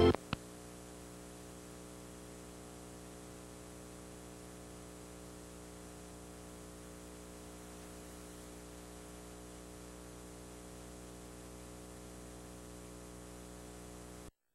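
Dead air on an analogue TV broadcast taped on VHS: a steady electrical hum with its overtones over faint static hiss, after a single click. It cuts off to total silence just before the end.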